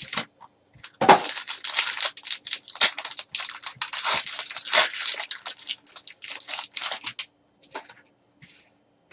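Plastic wrapping of a trading-card pack being torn open and crinkled by hand: dense crackling that starts about a second in and stops about two seconds before the end.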